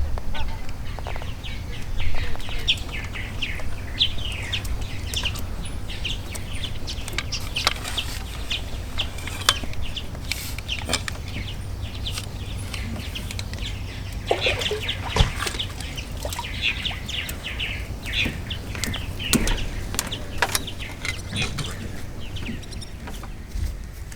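Birds chirping in quick runs of short calls, in two busier spells. A steady low rumble runs underneath, with a few sharp clicks.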